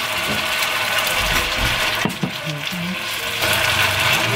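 Pork and bean sprouts sizzling in a hot frying pan as soy sauce is poured in and stir-fried with chopsticks, with a couple of sharp clicks about two seconds in.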